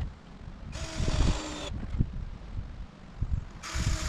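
A handheld power drill running in two bursts of about a second each, a few seconds apart, with a steady motor whine.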